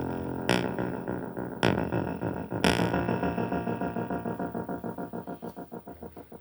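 Synthesizer music: sustained electronic chords struck about once a second, giving way to a rapidly pulsing repeated note, about five pulses a second, that fades out near the end.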